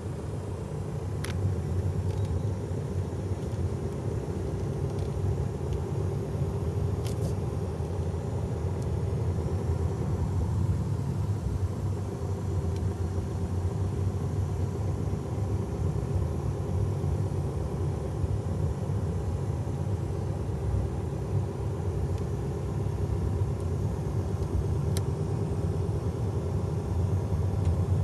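Car driving slowly, heard from inside the cabin: a steady low engine and tyre rumble with a faint hum, and a few faint ticks.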